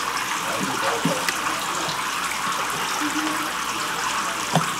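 Steady rush of pumped water splashing down in a home-made rain chamber, with a couple of faint clicks.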